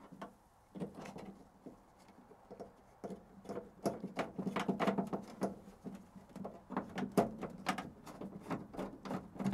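Irregular clicks, taps and knocks of a plastic LED light bar with 3D-printed mounts being handled and pressed into place against a van's sheet-metal cargo wall, starting about a second in and coming thicker from about three seconds on, over a faint steady hum.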